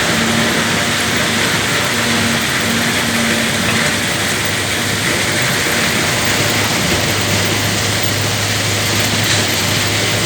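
Heavy earthmoving machinery at work: a diesel engine running under load with a continuous rattling, grinding noise, its low hum growing stronger about seven seconds in.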